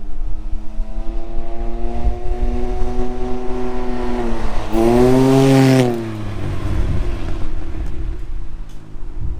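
Can-Am Ryker three-wheeler with an RLS Echo Series aftermarket exhaust driving past at about 40 mph. Its engine note builds as it approaches and is loudest about five seconds in. It then drops in pitch as it passes and fades. Near the end another engine note begins to rise.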